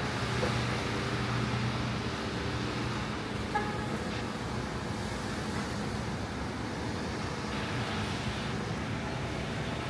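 City street ambience: a steady hum of traffic with a low engine drone underneath, and one short chirp about three and a half seconds in.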